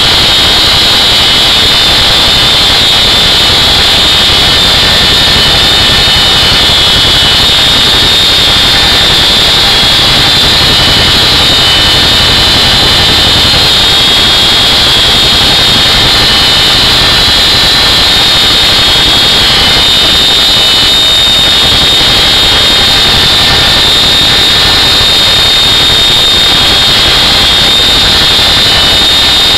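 CH-47 Chinook twin-turbine helicopter in flight, heard from inside the cabin with the rear ramp open: a loud, steady high whine over a dense roar from the engines, rotors and drive train.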